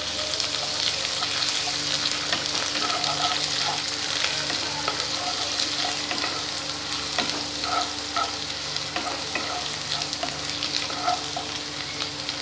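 Chopped onions, slit green chillies and freshly added ginger-garlic paste sizzling in hot oil in a pan, with a spatula stirring and scraping through them. There is a steady hiss of frying under many small crackles and scrapes.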